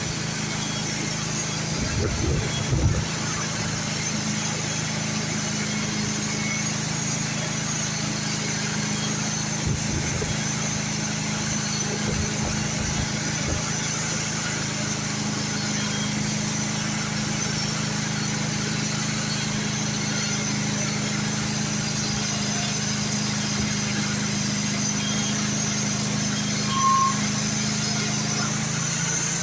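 Sawmill engine running steadily at an even speed.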